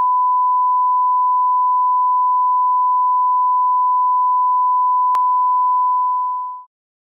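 Steady 1 kHz test tone of the kind played with colour bars: one unbroken pitch with a brief click about five seconds in, cutting off near the end.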